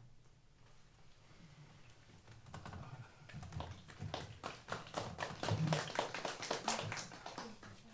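Small audience clapping, starting about two and a half seconds in with dense, irregular claps.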